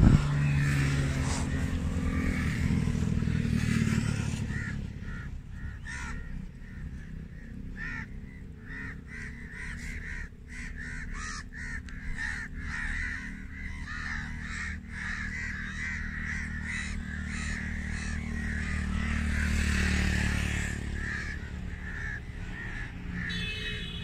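A sharp gunshot right at the start, then a flock of birds calling harshly and repeatedly over a steady low rumble.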